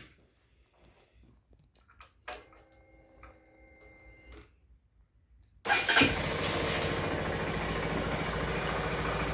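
A click, a faint steady hum for about two seconds, then a little over halfway the Honda CB125F's air-cooled single-cylinder engine is started and settles into a steady idle.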